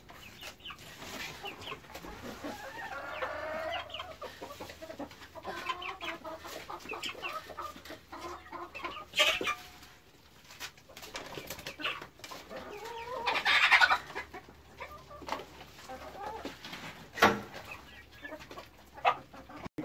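Chickens clucking and calling, short calls throughout, with a few sharp knocks and one louder harsh burst about two-thirds of the way through.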